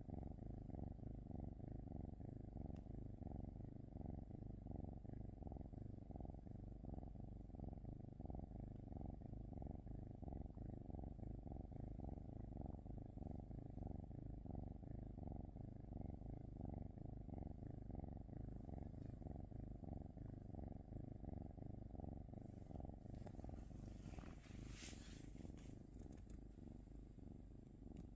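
Domestic cat purring steadily in an even, pulsing rhythm. There is a brief faint rustle near the end.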